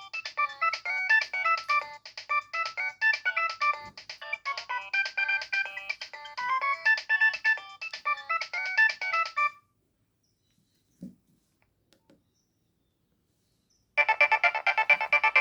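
Nokia 3120 ringtones: a melody of quick, short electronic notes that stops about nine and a half seconds in, a couple of faint clicks during a short silence, then a new, denser ringtone of rapidly repeated notes starting near the end.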